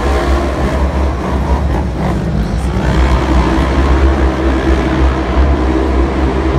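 Engines of several off-road side-by-side racers running together as they race around a dirt arena track, a steady heavy low rumble.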